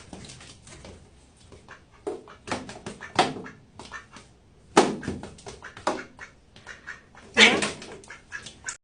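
A pet animal making a string of short, irregular cries and noises, the loudest about five seconds in and again near the end.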